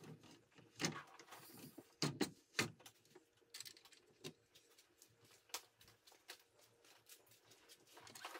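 Wooden boards of a cargo platform being shifted and set into place: scattered light knocks, taps and scrapes of wood on wood, with a few louder knocks in the first three seconds.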